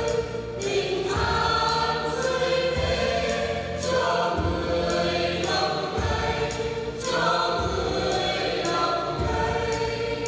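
Church choir singing in harmony with instrumental accompaniment, holding long chords that change every second or two over a low bass line.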